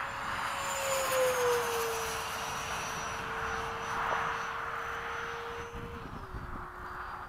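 Electric ducted fan of an RC F-15 jet (13-blade rotor on a 1600kv inrunner motor) whining in flight over a rushing blast of air. Its pitch drops a little about a second in and steps down again near the end.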